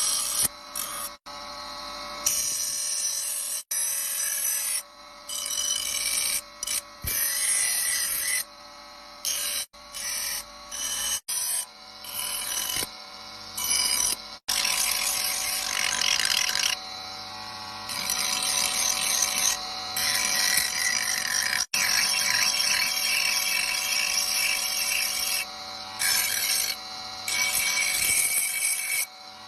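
Electric grinder grinding the steel blade of a newly forged wood-chopping knife in repeated passes: a harsh scraping hiss that comes and goes every second or two as the blade is pressed on and lifted off, over the motor's steady hum. This is the finishing grind after the blade has been hardened.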